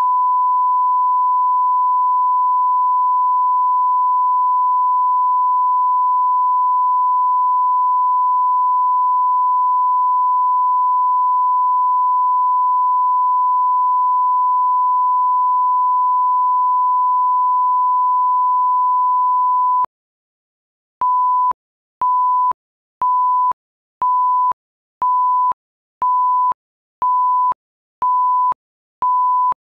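Broadcast line-up tone over colour bars: one steady, loud pure test tone held for about twenty seconds. After a second's gap come nine short countdown beeps at the same pitch, one a second, leading into the programme.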